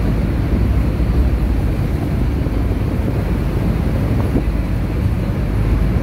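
Wind buffeting the microphone over the steady rush of Niagara's Horseshoe Falls and its churning river, a loud, even low rumble.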